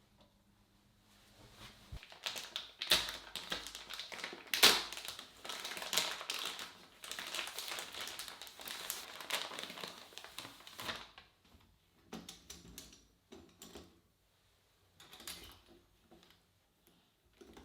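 Close-up handling noises: a dense, irregular run of clicks, taps and crinkles lasting about nine seconds, then a few scattered clicks.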